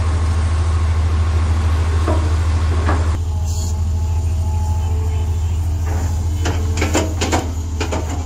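Heavy-equipment diesel engine running steadily with a deep hum. The sound changes abruptly about three seconds in, and a few short sharp sounds come near the end.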